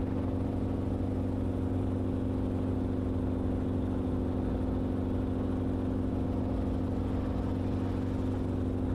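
Steady drone of an Enstrom helicopter in cruise flight, heard from inside the cabin: a constant hum of engine and rotor over a hiss of air, unchanging in pitch and level.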